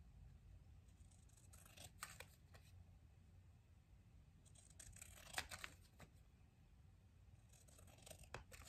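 Faint snips of scissors cutting paper, in a few short runs of cuts, the loudest about five seconds in.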